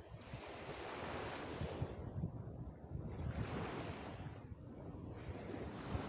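Small waves breaking and washing up a beach, the hiss of the surf swelling and fading about three times, with wind rumbling on the microphone.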